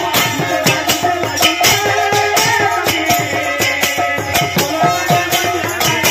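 Odia kirtan music: khola drums beaten in a fast, dense rhythm with manjira hand cymbals clashing, over a few held melodic tones.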